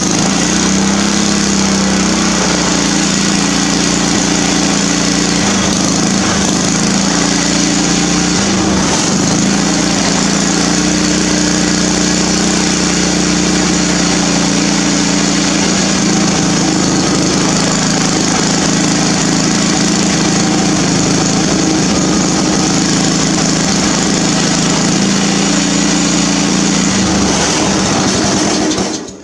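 Cub Cadet riding mower's small gas engine running steadily with the choke off, on a throttle cable freshly hooked straight to the carburettor butterfly.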